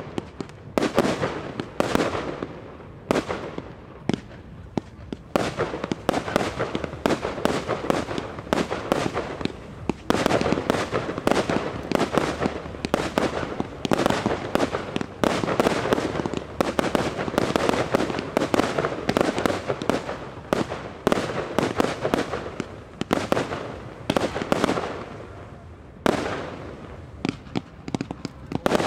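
Professional fireworks display: aerial shells launched from mortars and bursting in rapid succession, a dense run of bangs one after another. The barrage eases off briefly a few seconds in and again near the end before picking up.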